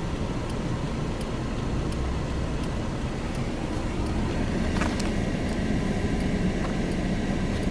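Steady noise of car traffic passing close by, heard from inside a waiting car, swelling a little in the middle, with a brief click about five seconds in.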